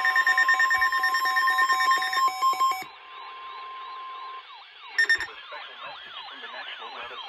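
Weather radio emergency alert signalling. For the first three seconds loud digital header bursts sound over a steady alert tone near 1 kHz, which stops about four seconds in. Then a quieter siren-like alarm sweeps up and down about twice a second, with one more short loud data burst about five seconds in.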